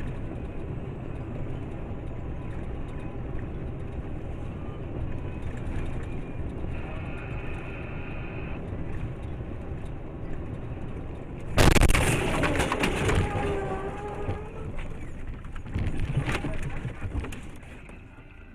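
Steady road and engine noise in a moving car, with a short steady beep about seven seconds in. About twelve seconds in comes a sudden loud bang, followed by wavering, falling tones for a couple of seconds, typical of a road collision.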